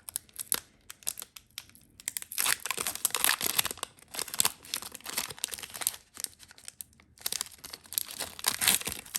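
Wrapper of a hockey trading card pack crinkling and tearing as it is worked open by hand, a pack that is hard to open. A few light clicks at first, then steady crackling from about two seconds in, with a brief pause near the end.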